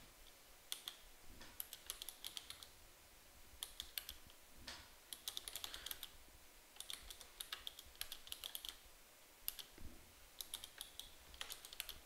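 Faint typing on a computer keyboard: irregular runs of key clicks with short pauses between words.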